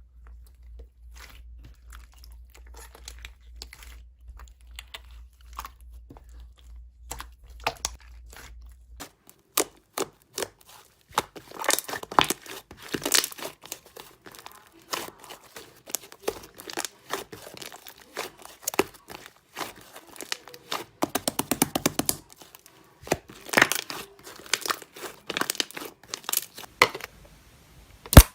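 Slime being pressed and stretched by hand, giving sharp crackling clicks and pops. The clicks are faint at first and grow louder about a third of the way in, with a quick even run of clicks a little past the middle.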